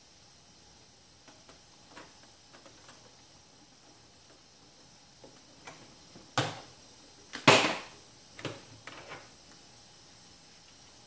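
Handling noise at a sewing machine: a few sharp plastic clacks and knocks and a short scraping rustle as a freshly sewn nylon strap is taken off the machine. The rustle, about seven and a half seconds in, is the loudest.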